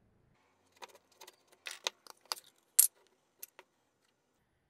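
A run of light metallic clicks and clinks, about a dozen over three seconds with the sharpest one near the end: the tin lid of an old grease can being worked off and set down.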